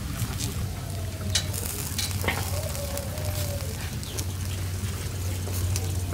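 Skewered chicken wings sizzling over a charcoal fire, the embers crackling with scattered sharp pops, over a steady low hum.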